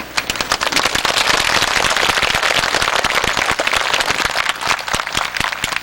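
Audience applauding: a crowd of hands clapping that starts suddenly and thins out near the end.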